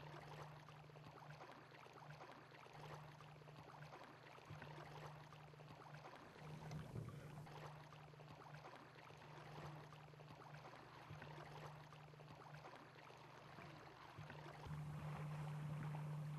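Near silence: a faint, even wash of shallow-water ambience under a steady low hum.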